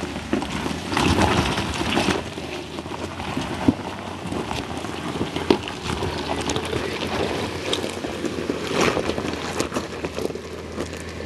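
Jeep Wrangler JK Rubicon crawling over a rocky trail: the engine runs low and steady while the tyres crunch over loose rock, with scattered clicks and knocks of stones, two sharper knocks standing out.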